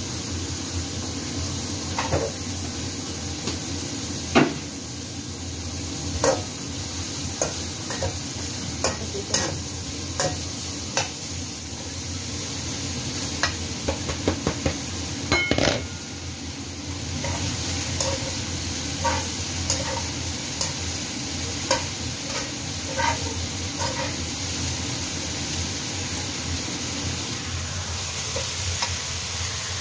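Chopped cabbage and carrot stir-frying in a wok on a gas burner: a steady sizzle, with a spatula scraping and knocking against the pan at irregular intervals.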